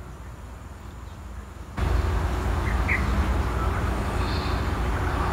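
Water poured from a plastic measuring jug into a hydroponic kit's reservoir, under a steady rushing noise with a low rumble that starts abruptly about two seconds in. A bird chirps briefly in the middle.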